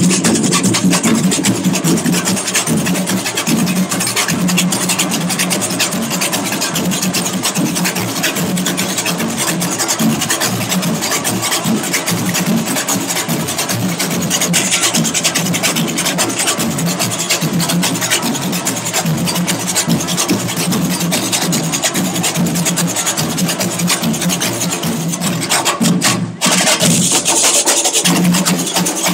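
Fast hand drumming on a conga, a driving samba rhythm of dense rapid strokes. It drops out for a moment near the end and picks up again.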